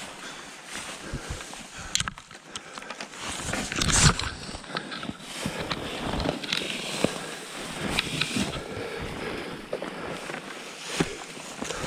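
Packraft paddle strokes through thin lake ice: irregular cracking, crunching and clinking of breaking ice with water splashes, the loudest hit about four seconds in.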